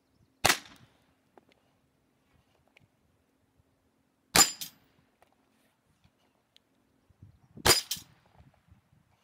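Three one-handed pistol shots, about four and then three seconds apart. The second and third shots are each followed within a fraction of a second by another sharp crack.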